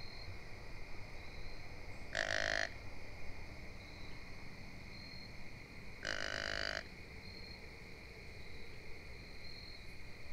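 Two short, identical calls, each about half a second long and about four seconds apart, over a steady high drone of insects with faint repeated chirps.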